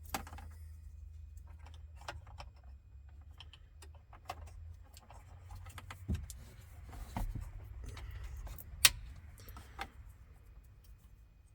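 Plastic wiring-harness connectors and loose wires rattling and clicking as the main power plug is worked into the back of a replacement car radio. Small irregular clicks run throughout, with one sharp, louder click about three-quarters of the way through.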